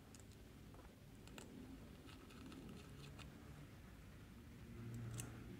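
Near silence with a few faint, scattered clicks and taps: small bolts being driven to fasten a mass airflow sensor onto a plastic intake sensor housing.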